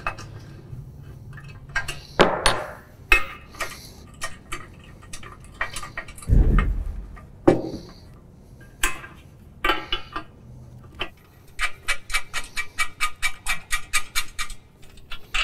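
Metal hardware clinking and knocking as nuts are worked along the bolt of a drawbar latch, with a dull thump about six seconds in. Near the end comes a fast, even run of clicks, about four or five a second.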